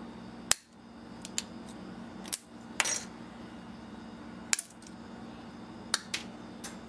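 Wire cutters snipping through the gold-finger edge of a circuit board: a string of sharp clicks, about eight, spaced irregularly over several seconds.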